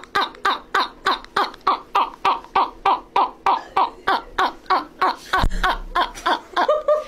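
A man laughing hard in rapid, evenly spaced bursts, about three a second, each one falling in pitch, breaking into a short held note near the end.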